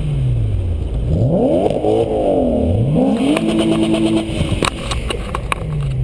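Car engine revving, its pitch falling and then rising sharply twice, as through gear changes, before holding steady, with a quick run of sharp clicks about five seconds in. Low wind rumble on the roof-mounted camera underneath.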